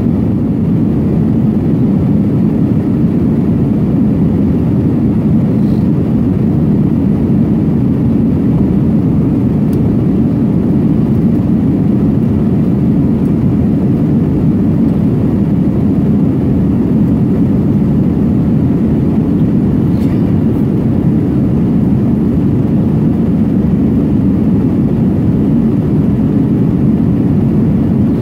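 Steady cabin noise inside an Airbus A320 climbing out after take-off: its jet engines and the airflow over the fuselage heard from a window seat over the wing, a low, even rumble.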